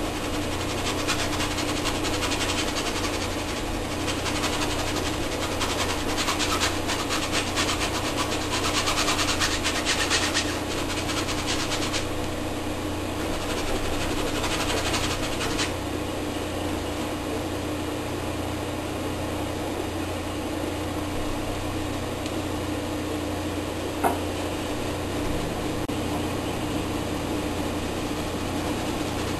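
Paintbrush scrubbing against the canvas in rapid strokes while oil paint is laid on, a scratchy rubbing that stops about 16 seconds in. A steady electrical hum runs underneath, with a single click near the end.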